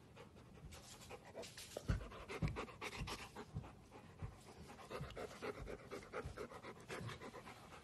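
Golden retriever panting softly, about two breaths a second.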